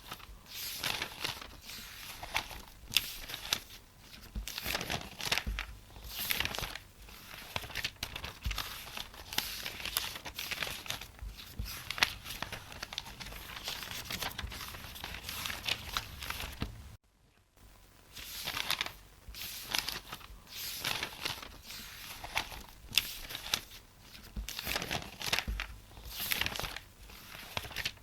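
Paper pages of a book being leafed through, with a quick run of rustles and flicks as page after page is turned, as when searching for a page. About two-thirds of the way through there is a brief cut to silence, then the page-turning goes on.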